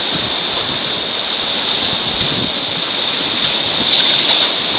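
River water rushing steadily around a raft on beginner white water.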